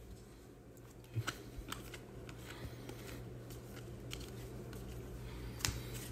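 Trading cards being handled and sorted: faint scattered clicks and rustles of card stock, the sharpest about five and a half seconds in, over a low steady hum.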